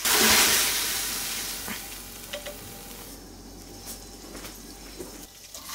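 Small Korean green onions stir-frying in a hot pan: a loud sizzle at the start that fades away over about three seconds, with a few light clicks during the quieter part.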